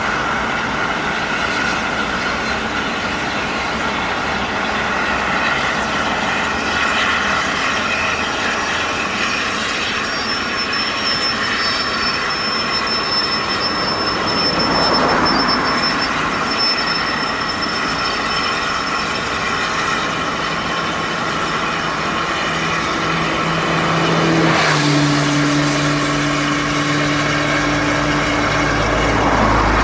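Road traffic passing close by, with a steam-hauled train crossing a railway bridge overhead. Vehicles go past about halfway through and again near the end, where an engine's note drops in pitch as it passes.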